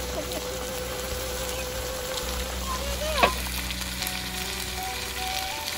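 Yellow coconut-milk fish curry (gulai ikan) simmering and sizzling in a black wok, a steady bubbling hiss. Just past three seconds in, a brief sharp chirp-like sound stands out as the loudest moment.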